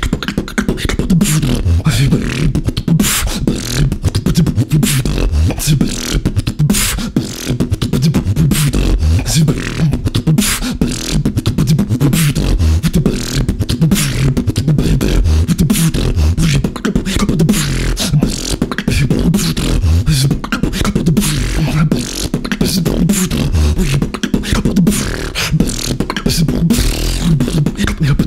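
Solo human beatbox: fast, unbroken mouth percussion of sharp clicks and snare-like hits over a low, pitched bass line.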